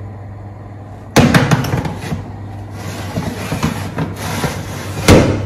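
Metal baking tray scraping and clattering as it is slid onto a wire oven rack, ending in a single loud knock near the end, over a steady low hum.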